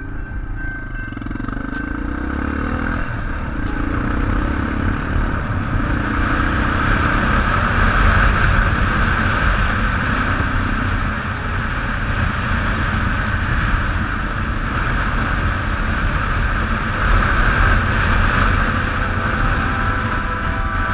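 Yamaha XT600's single-cylinder engine running as the motorcycle is ridden along a road, with heavy wind noise rushing over the helmet-mounted microphone. The engine and wind get louder over the first several seconds, then hold steady.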